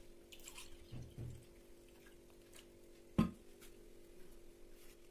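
Quiet handling of a steel pan and glasses: a few faint drips and ticks, soft low thuds about a second in, and one sharp knock, the loudest sound, a little after three seconds. A steady low hum runs beneath.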